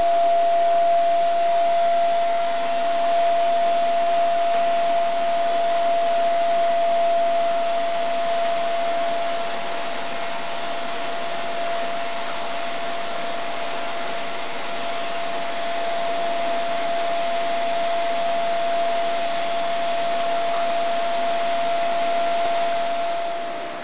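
Vacuum cleaner running steadily, its floor-brush nozzle being drawn over a cat's fur; a constant whine sits over the airflow hiss.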